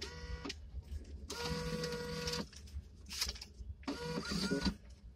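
Photo booth's bill acceptor motor whirring in short runs of about a second each, a steady mechanical whine as dollar bills are pulled in.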